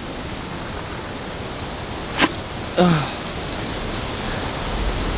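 Wind buffeting the microphone as a steady rush that swells near the end, with one sharp click about two seconds in and a short falling grunt a moment later.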